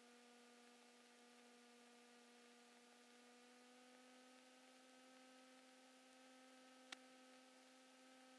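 Near silence: a faint steady electrical hum on the cockpit intercom audio, its pitch lifting very slightly about four seconds in, with a single faint click near the end.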